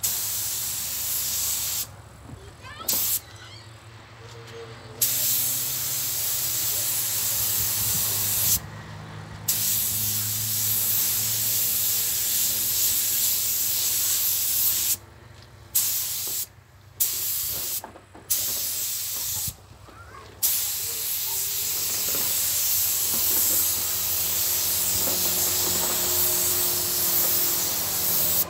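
Pneumatic paint spray gun hissing steadily while a coat of paint goes on, the trigger let go briefly about seven times, mostly in the first twenty seconds.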